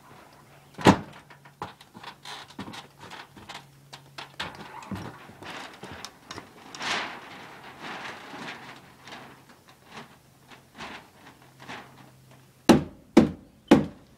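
Knocks and thumps of building work: one sharp loud knock about a second in, scattered small clicks and clatter with a longer scraping rustle midway, then three loud blows about half a second apart near the end, over a faint steady hum.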